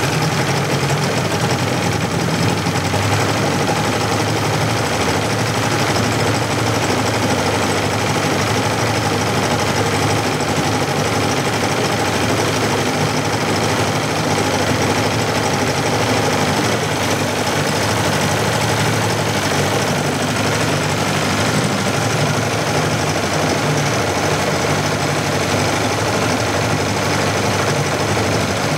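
1980s Suzuki DT-25 two-stroke outboard running steadily in a test tank with its cowling off, an engine the owner feels is not running as smoothly as it should.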